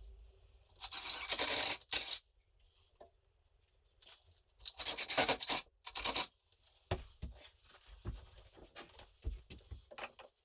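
Two rough tearing or scraping strokes, each about a second long and about four seconds apart, followed by a run of light clicks and knocks from handling work.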